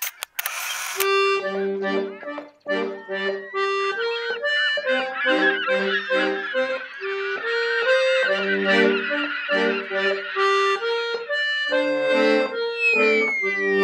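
Instrumental interlude music: a reedy melody over sustained lower notes, with a falling pitch glide near the end.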